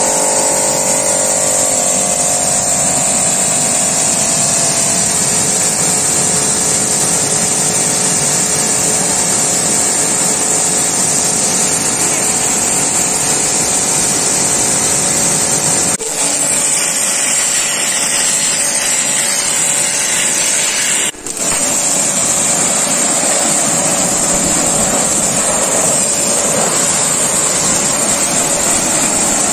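Global Power GP 3300 high-pressure washer with a 3300-watt induction motor, running steadily and spraying a hissing jet of water. The sound drops out for a moment twice, a little past the middle.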